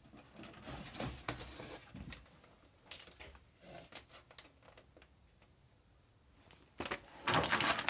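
Clear plastic bag crinkling and rustling as it is handled, faint and intermittent, then louder for about a second near the end.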